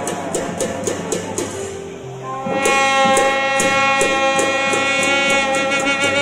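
Tujia folk music: long brass horns sound sustained notes over a steady beat of light percussion. About two and a half seconds in, a louder set of held horn notes comes in.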